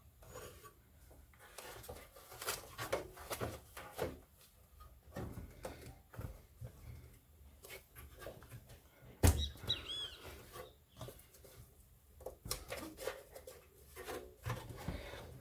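Knocks, clicks and scrapes of an ATX power supply and its cables being forced into a metal computer case, with one loud thump about nine seconds in followed by a short high squeak.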